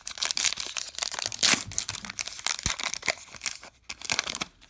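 Baseball card pack wrapper being torn open and crinkled by hand, a busy rustling crackle that eases off to a few crinkles near the end.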